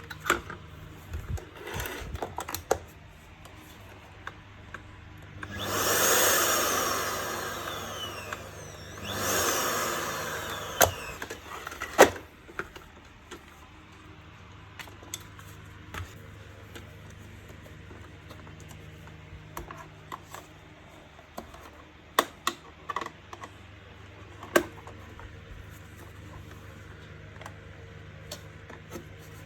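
Handling of the vacuum cleaner's plastic parts: scattered clicks and knocks, with two scraping sounds of a few seconds each about six and nine seconds in.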